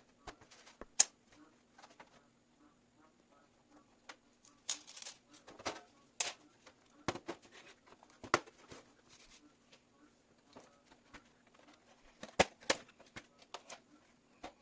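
Irregular clicks, taps and knocks of hands handling PC parts and cables, several sharp ones standing out, over a steady low hum.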